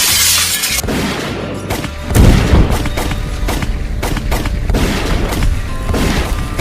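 Sound effects over background music: a sudden crashing burst at the start, then a heavy boom about two seconds in.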